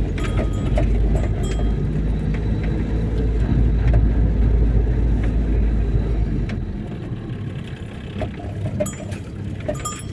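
A motor vehicle going by: a heavy low rumble of engine and road noise that fades away about two-thirds of the way through, with a few faint clicks.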